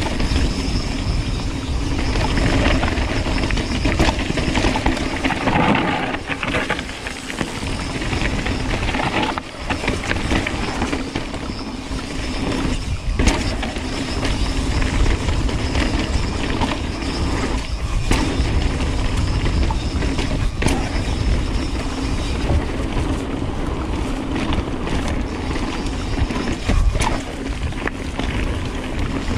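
Mountain bike riding fast down a dirt singletrack: tyres rolling and crunching over dirt, leaves and small stones, with wind rushing over the camera microphone and the bike rattling, plus scattered knocks over bumps and rocks.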